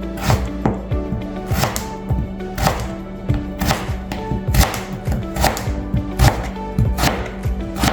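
Knife cutting through raw potato onto a cutting board, sharp strokes about once a second, over background music.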